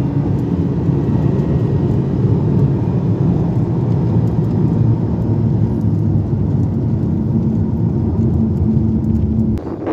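Steady road noise inside a car's cabin at speed: the engine drones under loud tyre and wind roar.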